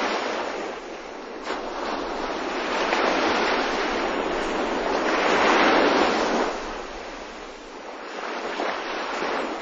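Surf: waves washing on a shore, a steady rushing noise that swells to a peak about halfway through, eases off, and swells again near the end.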